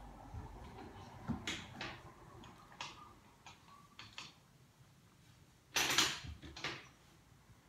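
A puppy's mouth making small wet smacking and licking sounds as water is syringed into it, with a louder, longer spluttering burst about six seconds in and a smaller one just after.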